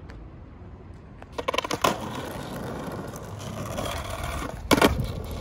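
Skateboard on asphalt: a few sharp clacks of the board on the pavement about a second and a half in, then the wheels rolling steadily, and one loud clack near the end.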